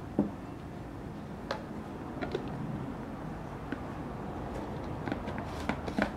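Kitchen cooking sounds: a few light knocks and clinks, the sharpest just after the start and a small cluster near the end, over a steady low rumble.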